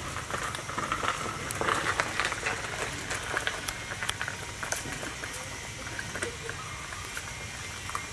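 Puppies eating: a steady, irregular patter of small wet clicks and smacks from chewing mouths and teeth.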